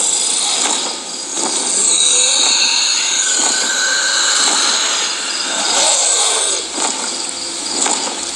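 Spirit Halloween Arctic Dragon animatronic growling, over a steady hiss as it breathes out fog, heard played back from a video through a screen's speakers.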